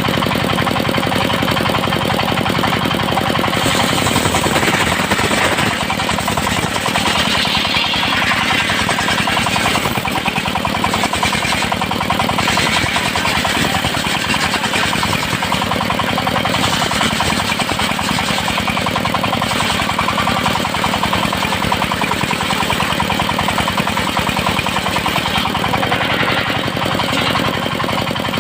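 Engine-driven sawmill circular saw running steadily with a fast knocking engine pulse, the blade's cutting hiss swelling and fading several times as teak is ripped into 2 cm boards.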